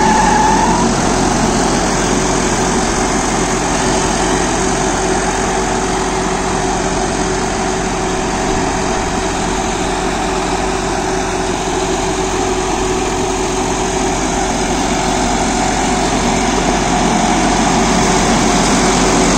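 John Deere 5075E tractor's 2900 cc common-rail diesel engine running steadily under load, driving a rotary tiller through the PTO to chop banana stalks.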